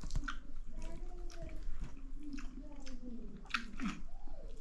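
Close-miked chewing and wet lip smacks of someone eating a mouthful of rice and dal, a string of sharp clicks, the loudest about three and a half seconds in. A fainter pitched sound glides up and down underneath.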